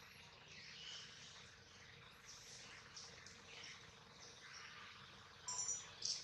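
Faint high-pitched chirps and squeaks over a quiet outdoor background hiss, with one brief, louder chirp about five and a half seconds in.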